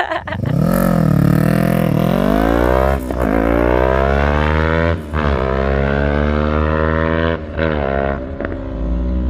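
Yamaha R3's parallel-twin engine accelerating hard from a launch. Its pitch climbs and then drops sharply at each of about four quick upshifts.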